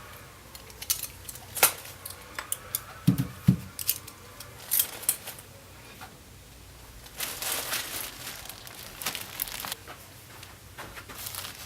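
Objects being handled: scattered sharp clicks and taps, two dull knocks about three seconds in, and a few seconds of rustling and crinkling later on.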